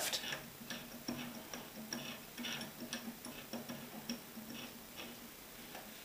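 La Gard three-wheel mechanical combination lock dial being spun to the left, giving a run of faint, irregular clicks and ticks that thin out near the end.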